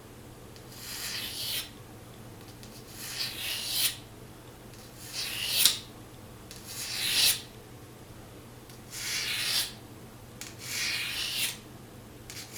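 A steel broadhead being sharpened by hand: about seven slow rasping strokes along the blade, one every second and a half or so, each building up and ending sharply.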